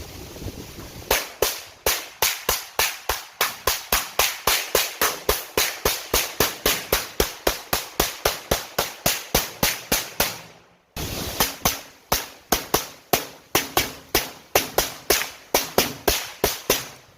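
FN P90 firing 5.7×28mm rounds as rapid single shots, about four a second. A long string breaks off abruptly about eleven seconds in, and a second string follows.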